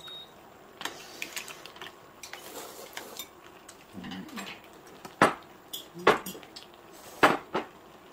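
Metal chopsticks and tongs clinking against a stainless steel serving tray and bowls as food is served, a few sharp clinks spread out, the loudest about five and seven seconds in.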